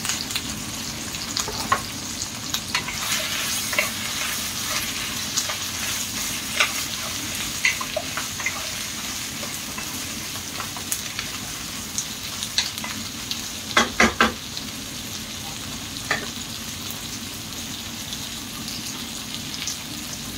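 Pumpkin pieces sizzling in hot oil in a pan while being stirred, with scattered sharp clicks of a utensil against the pan and a quick run of three loud knocks about fourteen seconds in.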